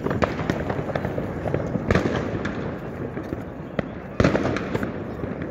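New Year's Eve fireworks and firecrackers going off all around: a continuous crackle of many overlapping bangs, with louder single bangs near the start, about two seconds in and about four seconds in.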